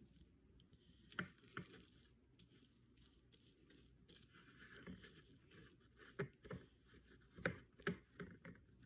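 Faint handling sounds from gluing tissue paper onto a plastic jar: scattered light taps and knocks with a soft rustle of paper, most of the taps coming in the second half.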